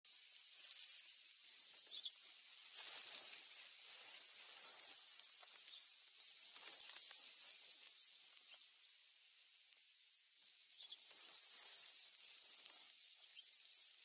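Outdoor ambience: a steady high-pitched hiss, with faint, short high chirps scattered every second or two and soft rustles around three, seven and eleven seconds in.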